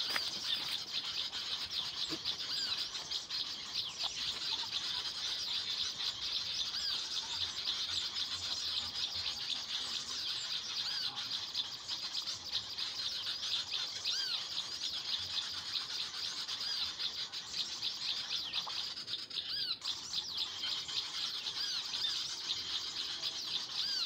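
Dense, continuous high-pitched chirping of small birds, many short chirps overlapping without a break: a bird-call lure recording played from an MP3 speaker to draw birds to the trap sticks.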